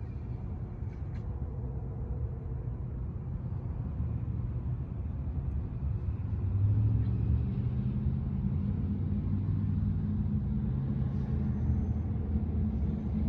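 Heavy dump truck's engine rumbling, low and steady, growing louder about six and a half seconds in and holding there.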